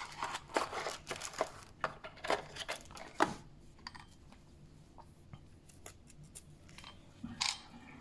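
Cardboard packaging being handled: a small paperboard sleeve slid and opened, with scraping and small clicks and taps, busy for about three seconds, then only scattered light taps as the plastic valve body is turned over in the hands.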